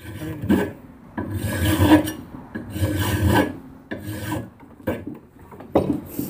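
Hand file rasping across the edge of a steel saw-blade knife blank clamped in a bench vise, in a series of strokes about one a second, rough-shaping the handle by knocking down high spots and rounding its corners.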